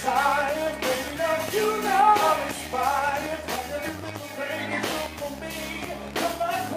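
Live band music with a male vocalist singing into a microphone, his melody bending and held over a steady low bass line.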